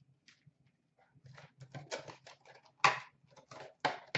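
Wrapped hockey card packs crinkling and rustling as they are worked out of a tight cardboard hobby box and set down, in a run of short irregular rustles that grow louder about three and four seconds in.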